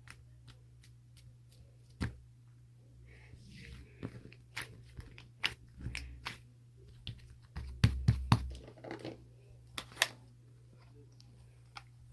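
Scattered sharp clicks and crunches at irregular intervals, loudest in a quick cluster about eight seconds in, over a steady low hum.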